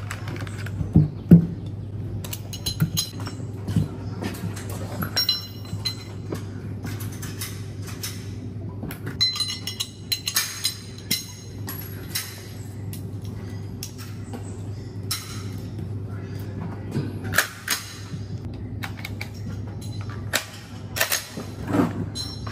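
Metal clicks and clacks of a semi-automatic pistol being handled, with its slide, magazine and loose cartridges knocking and clinking, the two loudest knocks about a second in. A steady low hum runs underneath.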